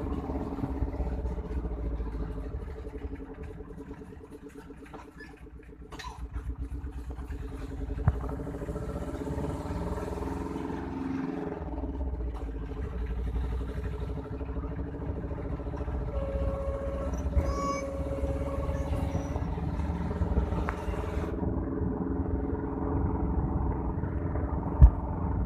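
Engine of a small road vehicle running steadily while travelling, with low road rumble; it quiets for a couple of seconds about four seconds in. Sharp knocks about eight seconds in and, louder, near the end.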